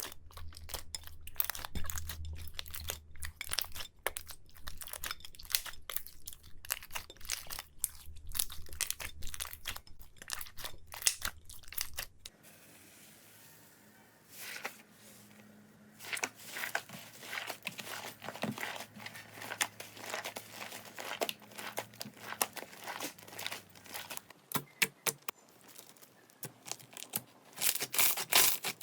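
Slime being squeezed and poked by hand, with dense crackling, popping clicks. The sound changes abruptly about twelve seconds in and goes quieter for a few seconds, then the crackling picks up again.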